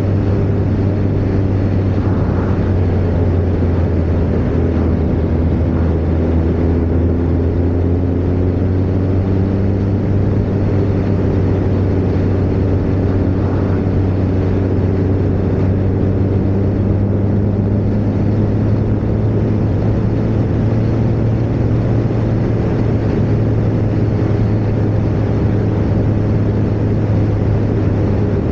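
Kawasaki ZZR1400's inline-four engine running at a steady, easy cruise, its pitch drifting only slightly, under a constant rush of wind noise.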